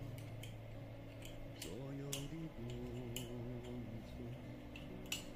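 Small metal wrench tightening a brass pressure-release valve into a titanium espresso maker's boiler: a string of irregular sharp metallic clicks and scrapes, the loudest near the end.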